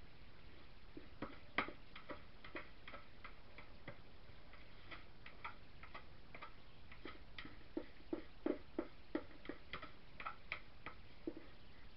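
Thick soap batter being scraped out of a plastic mixing bowl into a wooden loaf mold: irregular light clicks and taps against the bowl, with a run of fuller, lower taps and plops about eight to nine seconds in.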